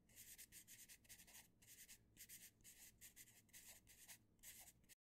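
Pencil scratching across paper in a quick run of short writing strokes, faint, cutting off suddenly near the end.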